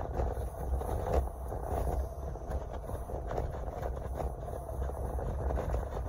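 Steady low rumble of engine and road noise heard from inside a moving car's cabin, with a few light clicks.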